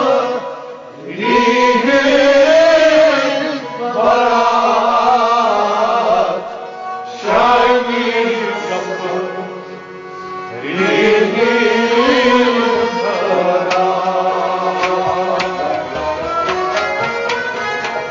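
Kashmiri Sufi devotional song: long, wavering sung phrases with short pauses between them over instrumental accompaniment. About two-thirds of the way through the singing drops out, and the instruments carry on alone with a run of short, sharp notes.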